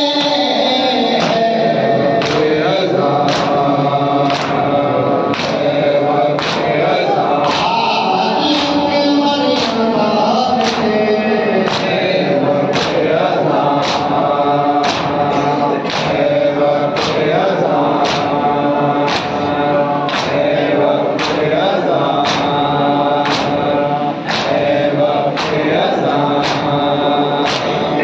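A crowd of men chanting a noha, a Shia lament, in unison, over a steady beat of sharp slaps from rhythmic chest-beating (matam).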